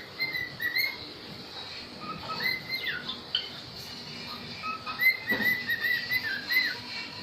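Small pet parrots chirping and whistling in short, arched calls, with a quick run of chirps about five seconds in.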